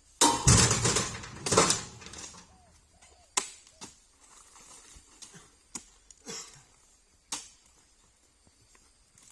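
Two loud rustling crashes in the first two seconds, then a few single sharp knocks a second or two apart.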